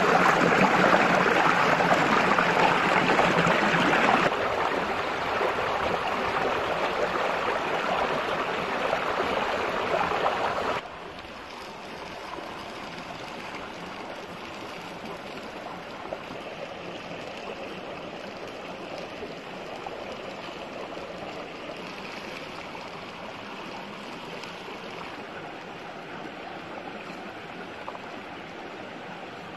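Stream water rushing and splashing over boulders in a small cascade. The sound drops in two steps, about four seconds in and again about eleven seconds in, leaving a softer, steady stream sound.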